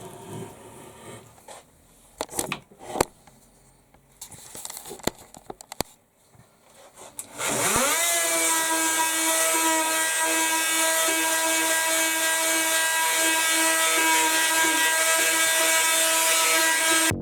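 A few scattered knocks and clicks, then an electric power tool motor starts about halfway through, its whine rising quickly to speed and then running steadily.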